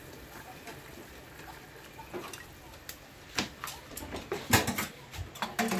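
Cooking utensils clicking and knocking: quiet for about three seconds, then a run of sharp clicks and knocks, the loudest about four and a half seconds in.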